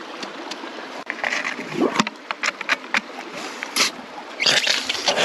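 Keene Engineering hand suction gun drawing muddy water and gravel out of a bedrock crevice. It makes a slurping, gurgling noise with many sharp clicks of stones rattling through the tube, and two louder surges of suction, about one and a half and four and a half seconds in.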